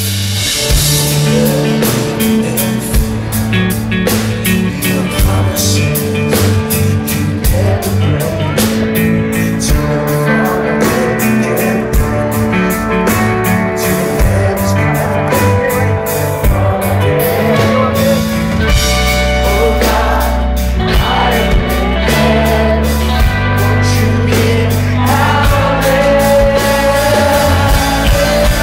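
Live rock-style worship band playing loud through a PA: a male lead vocal over acoustic and electric guitars, bass, keyboard and a steady drum beat, heard from within the crowd.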